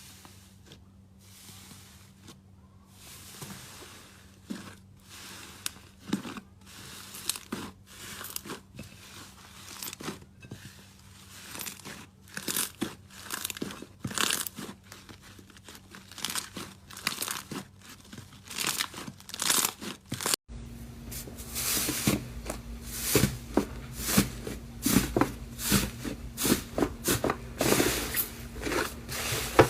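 Slime being squeezed and pressed in the hands, giving a dense run of sharp crackling and popping clicks that grows louder and busier, especially after a cut about two-thirds of the way in.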